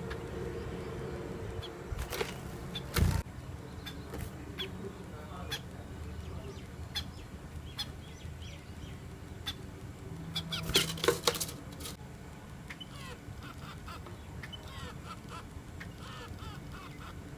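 Sparrows chirping in short, scattered calls over a steady low background. A few loud, brief rustling bursts cut in, the loudest about three seconds and about eleven seconds in.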